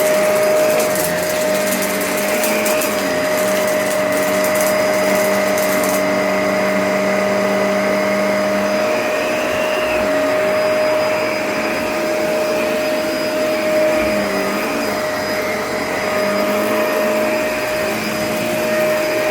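Vacuum cleaner running steadily with a constant whine, its lower tones wavering in pitch now and then.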